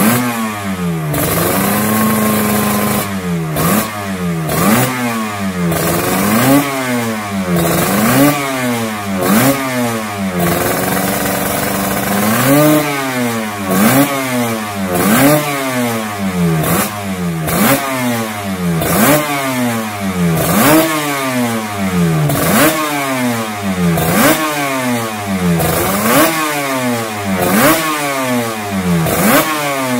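Suzuki RG500 Gamma's square-four two-stroke engine being blipped on the throttle while stationary: about one quick rev a second, each rising sharply and falling straight back, with two short spells of idle between the runs of blips.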